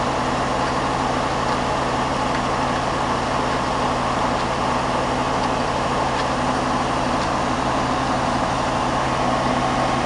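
Core drilling rig's engine running steadily: an even, unbroken mechanical hum.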